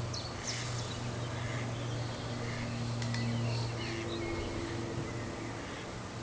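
Scattered short bird calls and song, a great tit among them, over the steady low drone of an aeroplane passing overhead.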